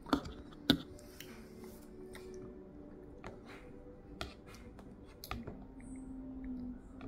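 A toddler's metal spoon clinking and scraping in a plastic feeding bowl: two sharp clinks right at the start, then a few lighter taps.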